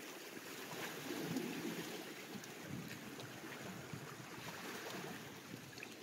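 Small sea waves washing and lapping against shoreline rocks, a steady rush of water that swells and eases.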